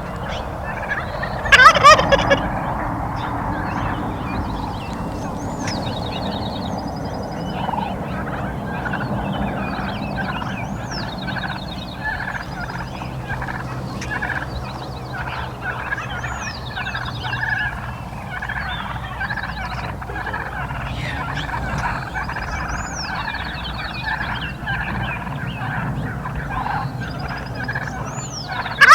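A Gould's wild turkey gobbling loudly about two seconds in, with another gobble starting right at the end. Between them a songbird repeats a short, high song every five or six seconds, and other birds call.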